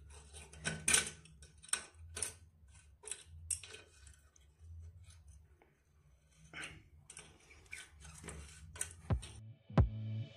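Adjustable wrench clicking and scraping on a rusted nut of a toilet floor bolt as it is turned and refitted, in irregular metallic clicks about one or two a second. A music cue starts near the end.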